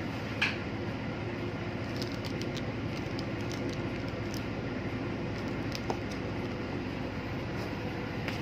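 Steady low machinery drone of a ship's interior, with a few faint light clicks and crinkles as a plastic-bagged part is handled.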